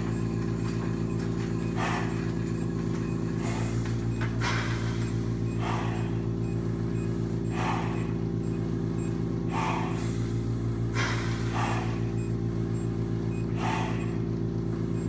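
Steady mechanical hum from the oxygen-training equipment, with hard, heavy breathing rushing in and out about every one to two seconds from someone exercising on low-oxygen air.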